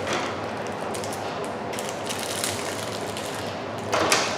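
Rustling and clicking of a small packaged item being handled and unwrapped, with a louder rustle near the end.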